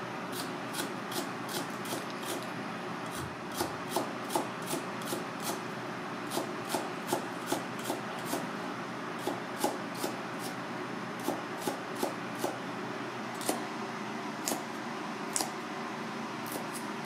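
Kitchen knife chopping thin green stalks on a plastic cutting board: crisp, rhythmic taps of the blade on the board at about two to three a second, in short runs with brief pauses, slowing to a few single cuts near the end. A steady background hum runs underneath.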